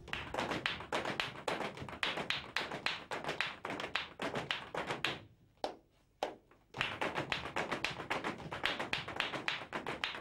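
Flamenco dancers' heeled shoes tapping and stamping a rapid footwork rhythm on a hard floor. The taps stop for about a second and a half midway, then start again.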